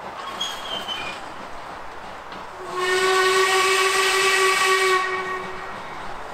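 Steam locomotive whistle sounding one long blast of about two and a half seconds, a steady tone with a hiss of steam through it, starting a little under halfway in.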